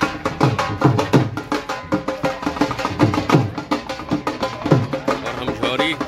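Music with a fast, steady drum beat; the low drum strokes bend downward in pitch.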